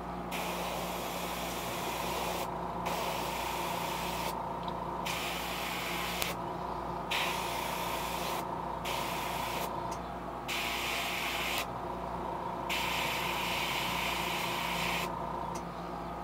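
Airbrush spraying sepia paint through a stencil onto a fishing lure to lay tiger stripes. It comes in about seven hissing bursts of one to two seconds each, with short pauses between them. A steady low hum runs underneath.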